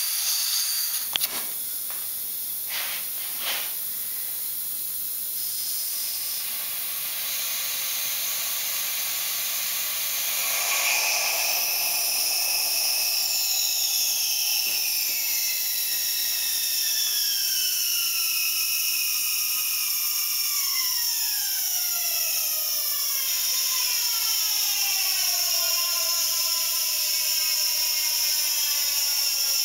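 Compressed air hissing from an air hose into the cylinder of a pneumatic stilt prototype. A few sharp clicks come in the first seconds, then from about ten seconds in the hiss grows louder and carries whistling tones that slowly fall in pitch as the cylinder fills and its piston rod extends.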